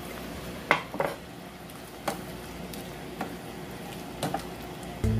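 Red plastic spaghetti server stirring shrimp and diced tomatoes in a frying pan, clacking against the pan a handful of times over a steady low sizzle.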